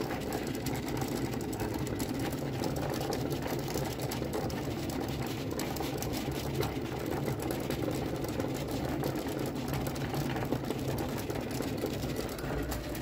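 Cricut Maker 3 cutting machine running a cut in Smart Vinyl, its motors giving a steady mechanical whir with fast, fine ticking.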